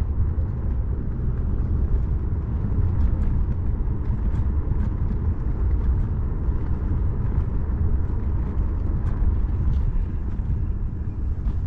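Steady low rumble of wind on the microphone and tyre noise from a Kaabo electric scooter riding at about 15 mph, with a few faint clicks.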